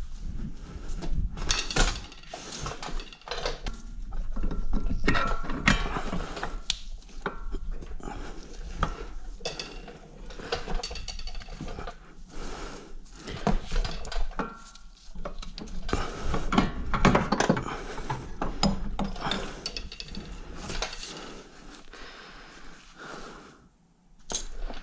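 A busy run of irregular metallic clicks, clanks and rattles as hand tools and a car's front CV axle are worked on and handled. The noise eases off near the end.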